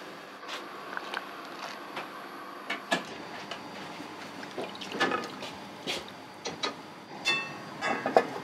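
Restaurant kitchen work sounds: scattered light knocks and clatters of utensils and cookware, with two ringing clinks near the end, over a steady low hum.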